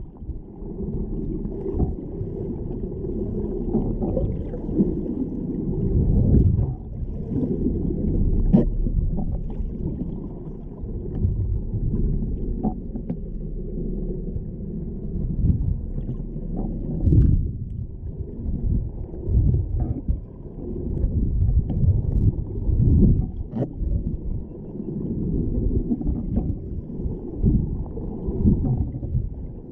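Muffled underwater water noise picked up by a GoPro in its housing: a low, uneven rumble that swells and fades, with scattered faint clicks.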